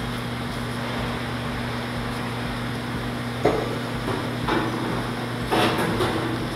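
A steady ventilation hum, with a single sharp knock about halfway through and a short run of knocks and clatter near the end.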